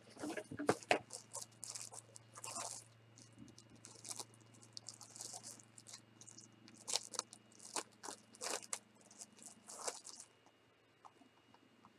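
Clear plastic packaging crinkling and crackling as it is handled and opened, coming in irregular spells and stopping about ten seconds in.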